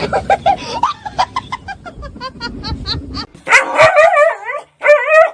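A dog yapping in a quick run of short high-pitched barks, then two longer wavering whines near the end.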